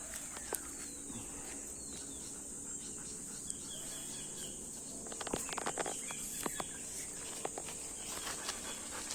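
Steady high-pitched drone of insects, with a short run of crackling clicks about five seconds in.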